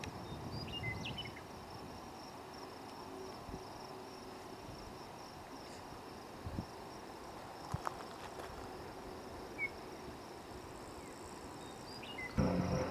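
Faint outdoor ambience: a steady high-pitched insect drone, with a few short bird chirps and some light clicks. A louder low hum comes in near the end.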